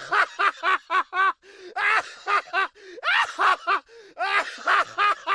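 High-pitched laughter: several runs of quick, short 'ha' syllables with brief breaks between them.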